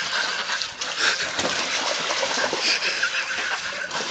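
Water splashing and sloshing in a swimming pool.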